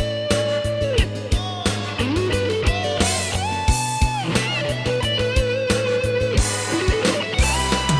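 Band playing the instrumental break of a rock ballad: an electric guitar plays a solo of long, bending notes over bass and a steady drum beat.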